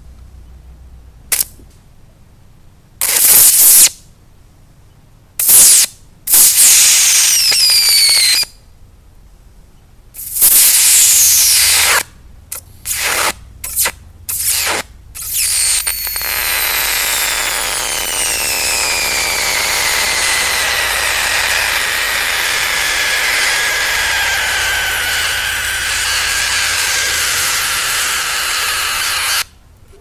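Electric arc between graphite electrodes run on 36 V from three 12 V lead-acid batteries in series. It begins as a string of sharp crackling bursts as the arc strikes and breaks. About halfway through it holds as one sustained hissing arc with a whistle that slowly falls in pitch, and it cuts off suddenly near the end.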